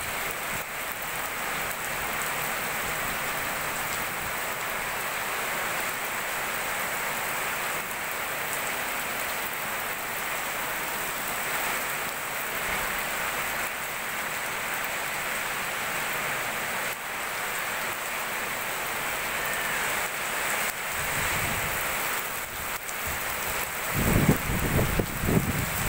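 Heavy rain pouring down steadily on a street, an even hiss. A louder, uneven low rumble comes in near the end.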